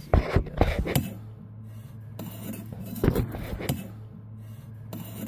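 Sharp clicks and light knocks of hard objects being handled in an engine bay: a quick cluster in the first second and a few more around three seconds in, over a steady low hum that sets in about a second in.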